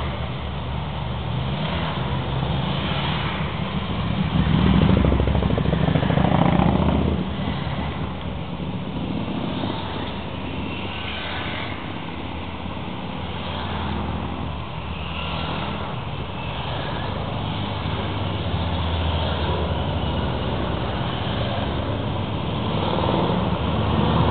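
A column of motorcycles riding slowly past one after another, their engines running steadily. One bike passes loudest about five seconds in, and the sound swells again near the end as a trike comes by.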